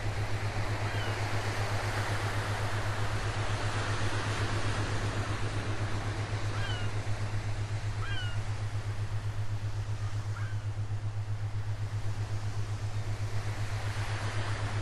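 Recorded ocean surf for sleep: a steady wash of noise that slowly swells and eases, over a constant low hum. A few faint, short, falling high calls sound through it.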